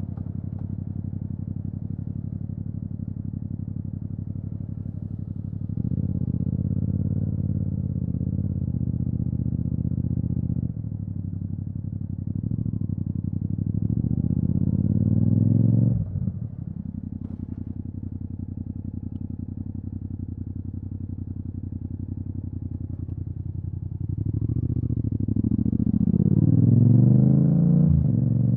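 Yamaha MT-07's parallel-twin engine through an Akrapovic exhaust, heard from the rider's seat. It runs steadily at low revs, pulls harder with the pitch climbing until a sudden drop about halfway, then climbs again under acceleration near the end.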